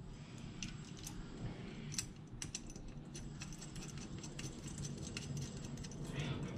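Small metal parts and hand tools being handled on a workbench: irregular light metallic clicks and clinks, over a low steady hum.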